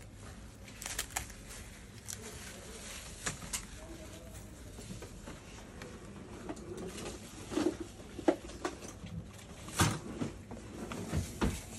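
Scattered clicks, taps and knocks of gloved hands handling a laptop's LCD panel and lid, fitting the screen back into place, with a few louder knocks in the second half.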